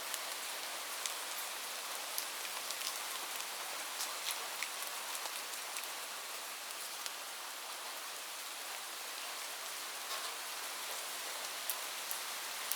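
Light rain falling steadily: an even hiss with scattered, sharper drop ticks.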